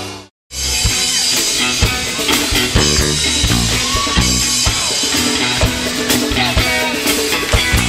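Band music: the sound cuts out for a moment about half a second in, then a band comes back in with drum kit, bass and guitar playing an upbeat instrumental passage without singing.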